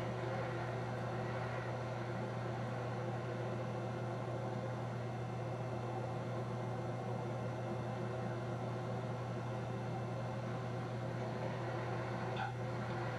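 Steady engine and road noise of a car driving, heard from inside the cabin, with a constant low hum underneath.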